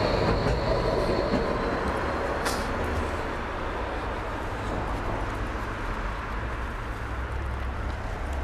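Low, steady rumble of street traffic, with a brief hiss about two and a half seconds in.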